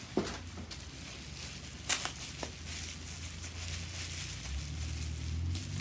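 Clear plastic wrapping rustling and crinkling as a small resin figure is unwrapped by hand, with a few sharp clicks about two seconds in.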